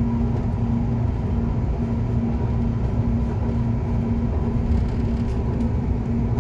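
Light rail train running along an elevated track, heard from inside the car: a steady low rumble of wheels on rails with a constant hum.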